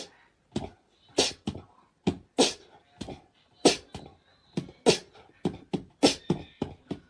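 A series of short, sharp percussive hits in a loose rhythm, about one or two a second, with quiet gaps between them.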